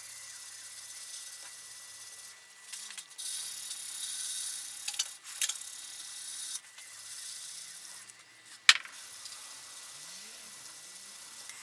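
Steady high-pitched scraping hiss of rust-removal work on the steel secateurs. It breaks off briefly a few times, and a sharp click comes near the end.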